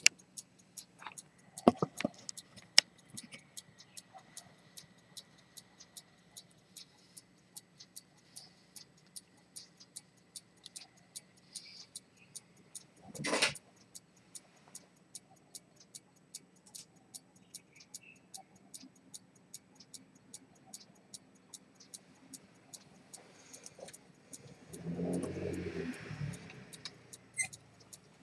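Dent 18k gold fusee pocket chronometer with a pivoted-detent escapement, running and ticking steadily at about two to three sharp ticks a second. A brief louder knock comes about halfway through, and a louder low rustle or murmur near the end.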